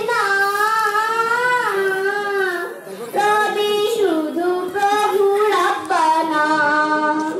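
Young girl singing solo and unaccompanied into a microphone, a Bengali song about going to the grave, with long held notes that bend and waver. The singing breaks briefly twice near the middle.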